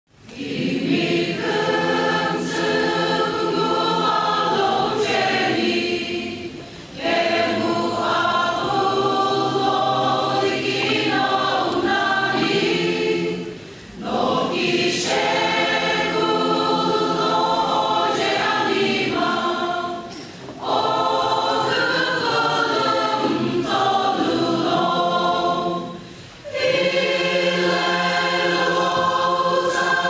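Mixed choir of women and men singing a gospel song, in phrases of about six seconds with a short breath pause between each.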